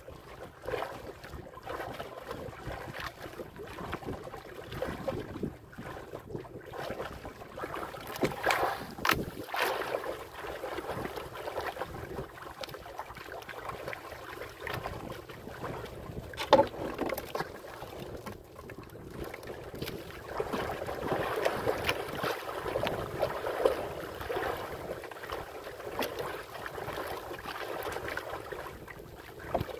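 Choppy sea water sloshing and splashing against the hull of a small outrigger boat, with wind buffeting the microphone. A sharp knock about halfway through.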